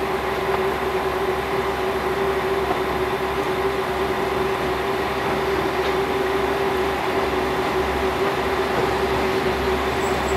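Diesel railcar engine idling: a steady hum with one constant mid-pitched tone over a low rumble.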